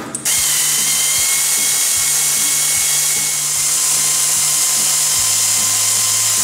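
Pneumatic air ratchet running continuously with a loud, steady hiss of exhaust air as it spins out one of the bolts holding the ATV final drive to the swing arm.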